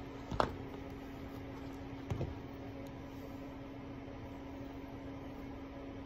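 Steady low hum of room noise, broken by a sharp knock about half a second in and a softer double knock about two seconds in, as a slide sandal is handled and set down on the wooden floor.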